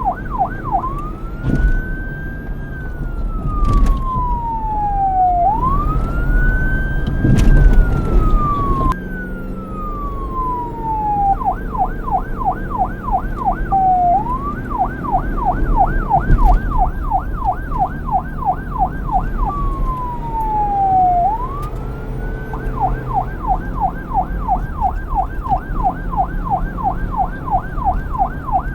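Police car electronic siren switching back and forth between a slow wail that rises and falls over a few seconds and a fast yelp of about three to four sweeps a second.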